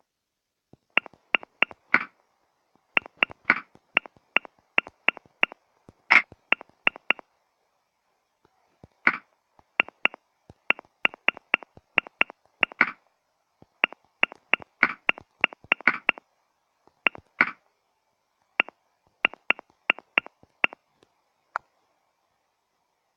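Smartphone on-screen keyboard click sounds as a message is typed: short, bright ticks in quick runs of several, with brief pauses between the runs.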